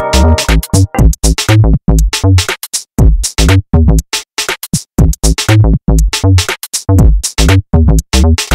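Electronic music with a punchy drum-machine beat and a choppy, stop-start rhythm.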